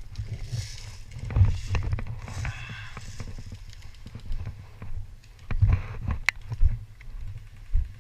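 Irregular low thumps and rustling from a player moving with gear on a body-worn camera, with one sharp click about six seconds in.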